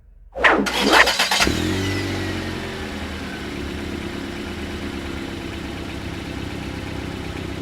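A car engine starts up and then runs with a steady hum.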